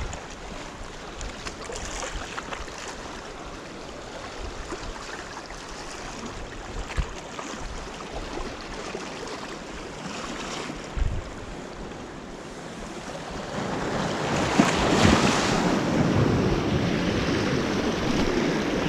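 Sea waves washing on the shore, with strong wind buffeting the microphone in low knocks. The wash swells louder about three-quarters of the way through.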